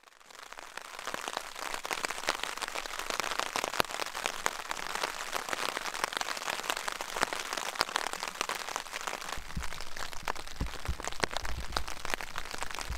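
Rain pattering on a tent's fly, heard from inside the tent: a dense, steady spray of drop hits that fades in at the start. A low rumble joins about nine seconds in.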